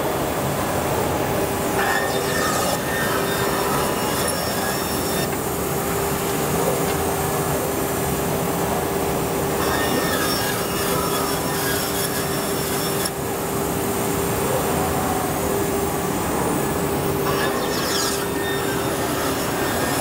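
Chang Feng CNC band saw running and cutting a wooden board, a loud continuous machine noise with a steady whine held throughout.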